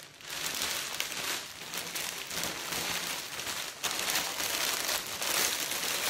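Clear cellophane wrap crinkling and rustling as it is gathered and pulled up by hand around a hamper basket. The crinkling is continuous, with a brief lull nearly four seconds in.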